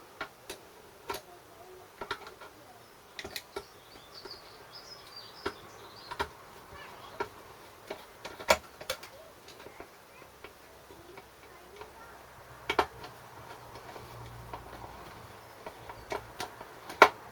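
Irregular light clicks and taps of small metal engine parts and tools being handled at a workbench during carburettor fitting.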